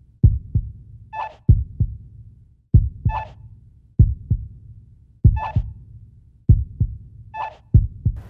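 Heartbeat sound effect: a deep double thump, lub-dub, about every one and a quarter seconds, with a short ringing chime about every two seconds.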